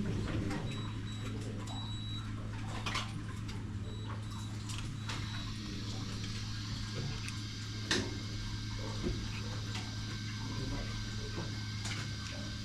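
A steady low hum with scattered light clicks and taps; the sharpest click comes about two-thirds of the way through.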